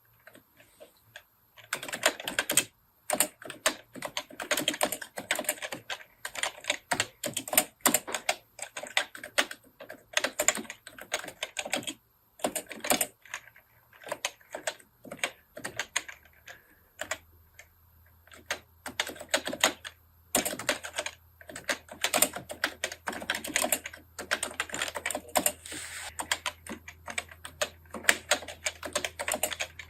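Fast typing on a computer keyboard, kana text entered in the thumb-shift (NICOLA) layout: rapid key clicks start about two seconds in, with brief pauses.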